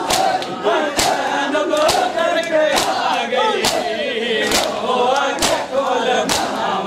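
A crowd of men performing matam, beating their chests together in time, about one sharp stroke a second, while many male voices chant together.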